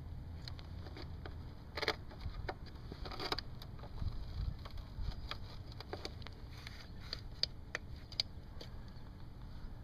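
Scattered light clicks and knocks of hand work on a motorcycle, tools and parts being handled, over a steady low rumble. The clearest knocks come about two and three seconds in, with several more later on.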